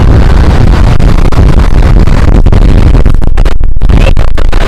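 Strong wind buffeting the microphone: a loud, steady low rumble, with brief dropouts in the upper sound about three and a half seconds in.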